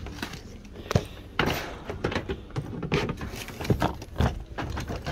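Hard-shell suitcase being handled and pushed back onto a store shelf among other luggage: a string of hollow knocks and bumps, with a brief scrape about a second and a half in.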